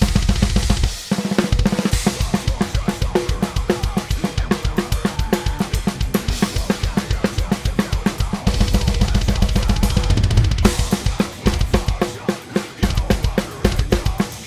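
Drum kit played at extreme-metal speed: rapid, even bass-drum strokes under snare hits and Meinl cymbals, with a stretch of heavier cymbal wash midway.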